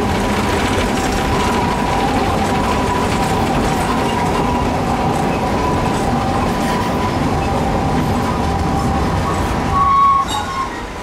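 Hiroden 100-type tram car 101 running along street track, a steady rumble of wheels on rail with a steady two-note whine over it. About ten seconds in a brief higher tone rises out of the noise, then the running sound drops.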